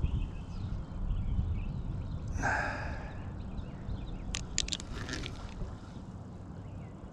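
Angler fighting a striped bass on a spinning rod and reel: low rumble of handling throughout, one sharp breathy exhale about two and a half seconds in, and a quick cluster of sharp clicks around four and a half seconds in.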